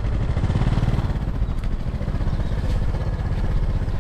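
Small Honda Dream underbone motorbike engine running steadily while the bike rides slowly.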